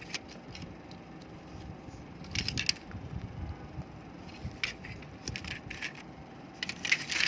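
Clicks and light rattles of small plastic computer-mouse parts being handled and set down, with a denser flurry of clicks about two and a half seconds in and another near the end.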